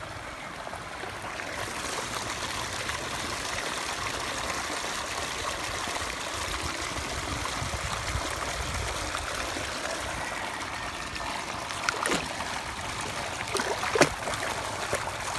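Steady running and trickling water in a sea-turtle tank, with two sharp knocks near the end.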